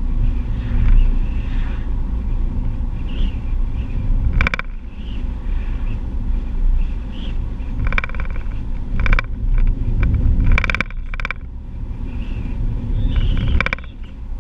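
Car driving along an open road, heard from inside the cabin: a steady low rumble of tyres and engine, broken by a few short, sharp knocks or rattles.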